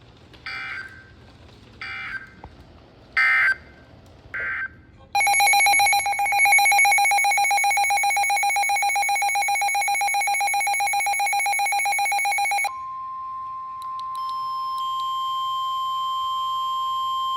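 NOAA Weather Radio emergency alert signal: a few short bursts of digital data screech, then a loud fast-pulsing alarm tone for about seven seconds, which gives way about twelve seconds in to a steady single-pitched warning alarm tone. The sequence announces that a new warning is about to be broadcast.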